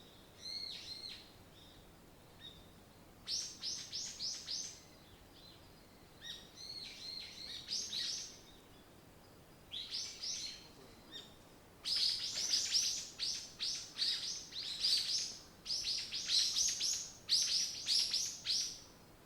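Songbirds singing: phrases of rapid, high chirps every few seconds, which grow denser and louder over the last seven seconds.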